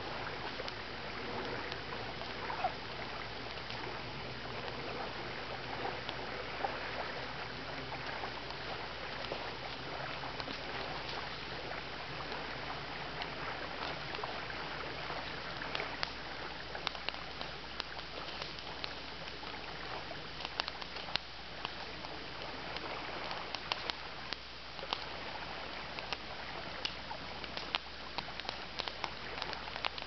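Wood campfire crackling, with many sharp pops and snaps over a steady background hiss; the pops come more often in the second half as the burning logs are tended.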